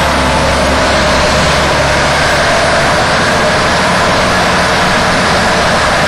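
Heavy diesel engine of a bulldozer running steadily under load, a loud, even mechanical noise.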